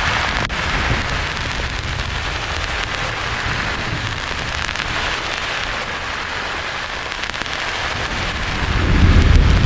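Steady hiss of white noise, with a deep rumble of thunder swelling in near the end.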